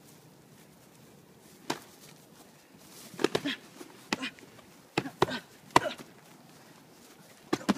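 Boxing gloves landing punches in sparring: a series of sharp slaps, irregular and in quick clusters, starting a little way in.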